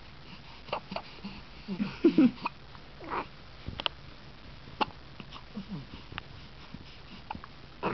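Newborn baby making small grunts, coos and hiccup-like sounds, short and scattered, loudest about two seconds in, with a few soft clicks.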